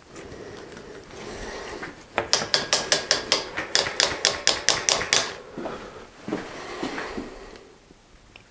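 A run of quick, evenly spaced ratcheting clicks, about five a second for some three seconds, on a bicycle being worked on in a stand. A few scattered knocks follow.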